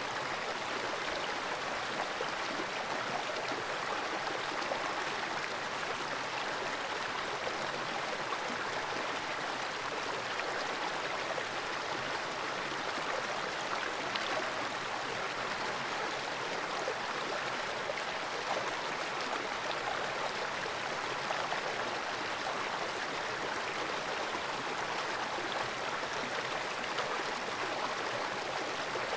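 Water of a small, fast-flowing creek rushing over rocks: a steady, even rush with no breaks.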